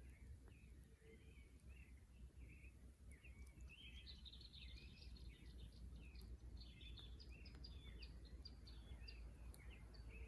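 Small birds chirping faintly, a steady string of short rising and falling notes that grows busier in the middle, over a low steady rumble.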